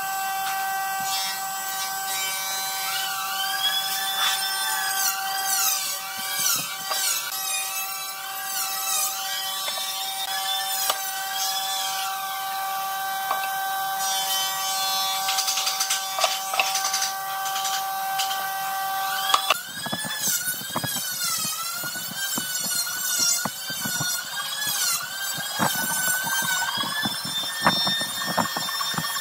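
A handsaw cutting a pine board by hand with repeated back-and-forth strokes, starting about two-thirds of the way in, after a stretch of steady hum. High warbling, gliding whistle tones run through it all.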